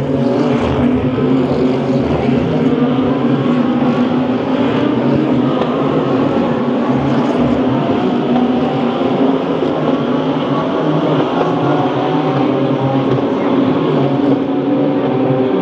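DTM GT3 race car engines running, a loud, steady sound of several pitches held throughout, without distinct single pass-bys.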